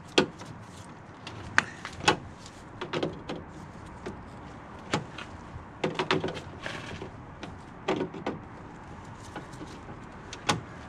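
A hand tool clicking and knocking against a failed bonnet-catch rivet and the metal slam panel of a Mk2 Golf: sharp, irregular clicks about every second as the rivet remains are worked out. There is no drill running.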